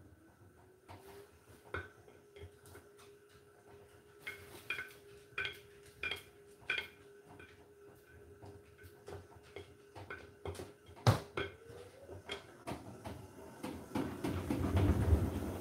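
Hotpoint NSWR843C front-loading washing machine turning its wash load: a steady motor whine with clicks and knocks from the tumbling laundry, the sharpest about eleven seconds in. Near the end the drum speeds up, its whine rising and a rushing noise growing louder as the laundry is pressed against the drum wall.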